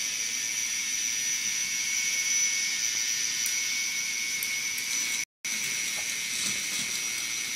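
K'NEX motor running steadily and driving the roller coaster's plastic chain lift: a steady high whine with a few faint clicks from the chain. The sound cuts out for a moment about five seconds in.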